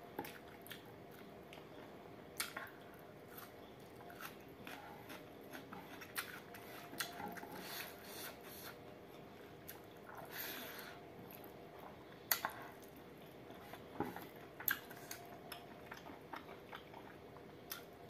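Close-up eating sounds of a person eating rice and curry by hand: irregular wet mouth clicks and chewing, with a few sharper bites standing out, over a faint steady hum.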